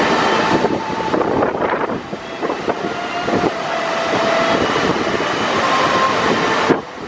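Steady roar of a large mountain waterfall, with faint drawn-out tones now and then over it.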